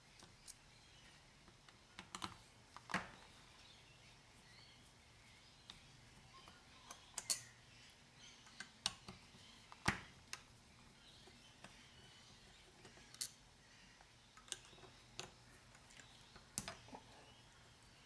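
A screwdriver clicking and tapping against the metal of a Yamaha XJ900S carburettor bank as its screws are worked loose: scattered light clicks, with a sharper click about every three seconds.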